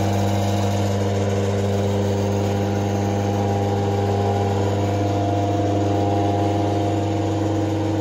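A DC motor belt-driving a washing machine universal motor, running at constant speed with a steady hum and several even tones. The universal motor is working as a self-excited generator, loaded by a brightly lit incandescent bulb.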